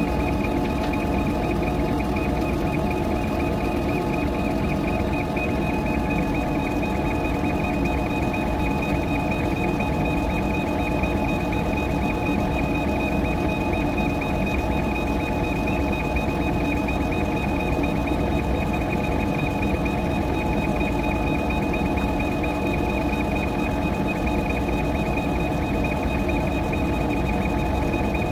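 CO2 laser engraver running through an engraving job on a metal tumbler turned by a rotary attachment: a continuous even mechanical drone with a steady high whine from the machine's motors and fans.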